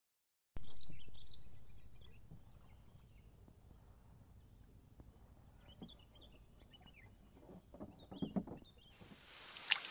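Birds chirping briefly outdoors over a steady high hiss, with a cluster of soft knocks about eight seconds in; near the end the background turns to a louder hiss.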